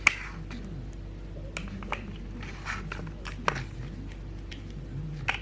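Scattered light clicks and knocks of plastic toy blocks being handled, about half a dozen in all, over a faint steady hum.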